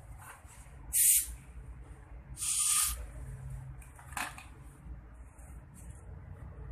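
Dental air syringe blowing short bursts of air into the mouth: two strong hisses about one and two and a half seconds in, and a fainter one about four seconds in, over a low steady background hum.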